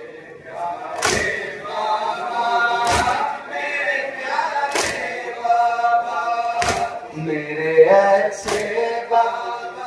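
A group of men singing a noha lament in chorus, punctuated by five loud unison chest-beating strikes (matam), one about every two seconds.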